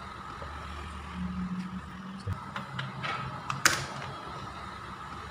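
Scattered light clicks and taps of a laptop's plastic case and parts being handled and fitted back together, with one sharper click a little over two thirds in, over a faint low hum.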